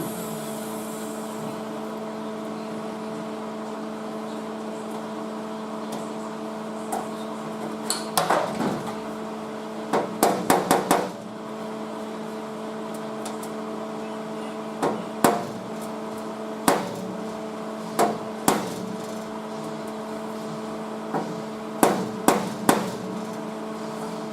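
Sharp hammer taps on sheet steel, coming singly or in quick runs of two to five with pauses between, over a steady electrical hum.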